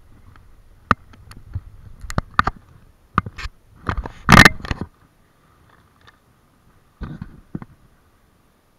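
Handling noise right on the camera's microphone: scattered clicks and knocks, with a louder scraping rub just after four seconds and a few more knocks near the end, as the camera is turned by hand.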